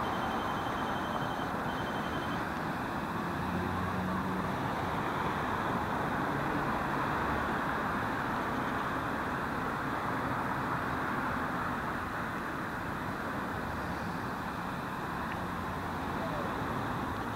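Steady background din of distant road traffic, an even rushing noise without breaks, with a faint pulsing high-pitched tone for the first couple of seconds.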